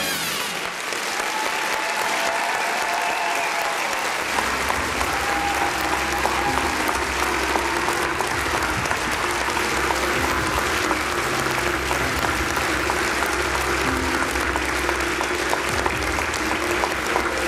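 Audience applauding steadily after a performance, with faint music underneath.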